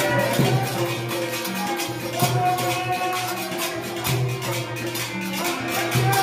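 Amplified devotional group song: a sung melody over a fast, even percussion rhythm.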